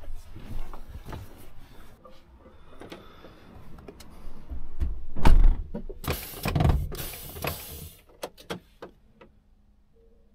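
Handling noise from the action camera being moved and set in place in a truck cab: rubbing and knocks, with a heavy thump about five seconds in and a loud rushing noise a second or so later, then a few sharp clicks near the end.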